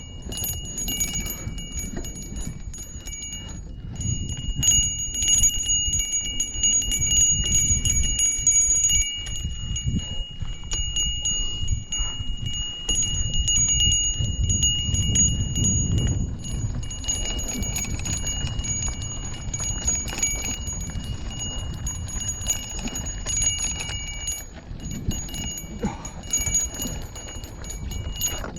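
Handlebar bell on a Lime rental being rung over and over in rapid dings, so its ringing tone hardly dies away between strikes. Underneath is a steady low rumble of wind and road noise from riding. The ringing thins out near the end.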